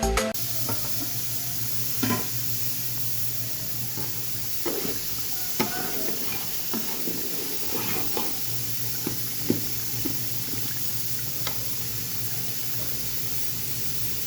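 Cooking in a pot: a spoon stirring and knocking against the pot, giving a few scattered sharp clinks over a steady hiss.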